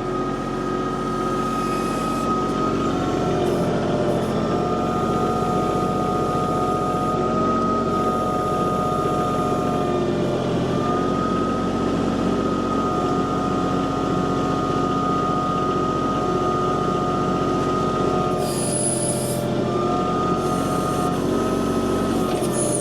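Kubota tractor's diesel engine running a backhoe, steady, with a whine that dips briefly and shifts in pitch a few times as the digging loads it.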